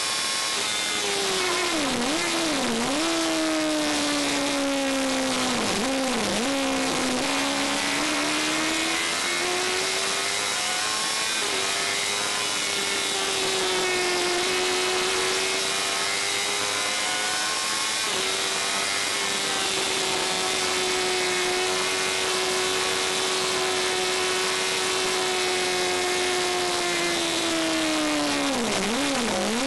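Onboard sound of a Fury race car's engine at racing speed: a high, steady engine note with wind noise. The pitch drops sharply and climbs back in quick pairs about two seconds in, around six seconds and near the end, as the driver changes gear.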